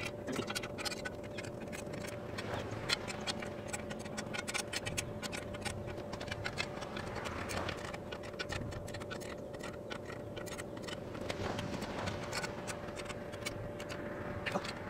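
Ratchet wrench clicking in irregular runs of quick ticks as the mounting bolts of a metal hose-reel wall bracket are tightened down, with light scraping of the tool. A faint steady hum sits underneath.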